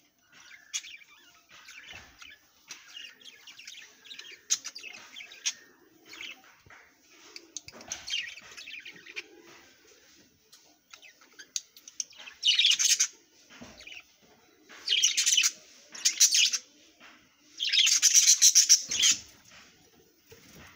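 Budgerigars chirping and chattering in a continuous busy warble, with three louder bursts in the second half.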